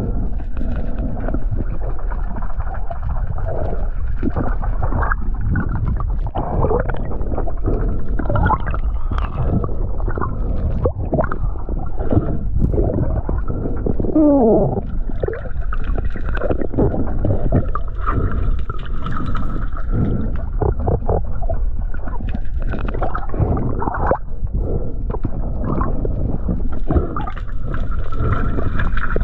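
Underwater sound heard through a diving camera's housing: muffled rushing and gurgling water with a low rumble and many irregular knocks and bumps. A thin steady whine comes and goes.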